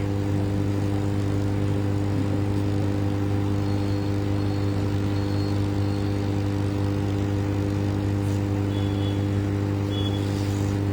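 Steady, unchanging hum of a hot-air rework station's blower as it heats the solder under a phone connector to free it, with a low drone and a faint whine.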